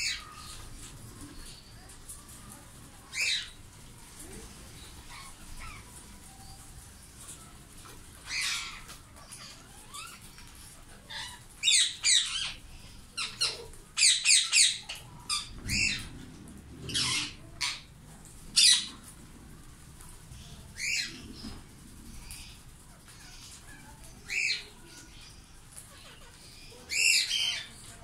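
Indian ringneck parakeets squawking: short, harsh, high calls, singly and in quick runs, busiest around the middle, over a faint steady background.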